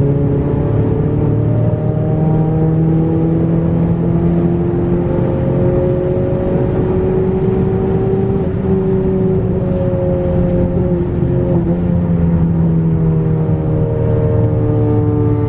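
Straight-piped, turbocharged 10th-gen Honda Accord engine and exhaust under steady driving, with the muffler and resonator deleted. The engine note climbs slowly for about eight seconds, holds, then drops near the end.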